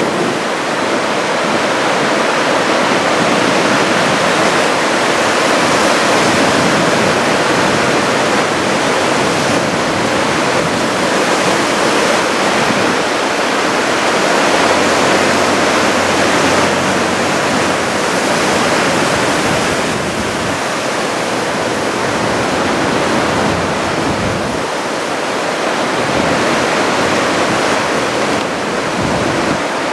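Large typhoon-swell waves breaking along the shore: a continuous rush of surf and churning white water that swells and eases a little.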